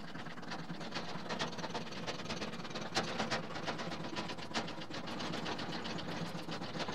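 A foot-pumped hydraulic lift table being jacked up, its pump mechanism clicking and clattering with each stroke in a steady run of about three clicks a second.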